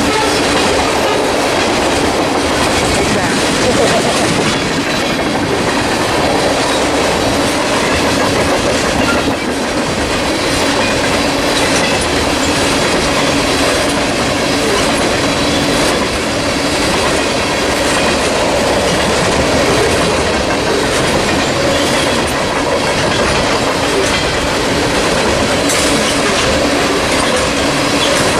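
Freight train cars rolling past at speed: a loud, steady rush of wheel and rail noise with the clickety-clack of wheels over rail joints and a faint steady tone underneath.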